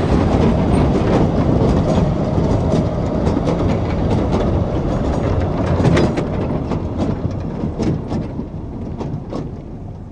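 Narrow-gauge train of open passenger wagons rolling past, the wheels clicking and clattering over the rail joints. The rumble fades over the last few seconds as the train moves away.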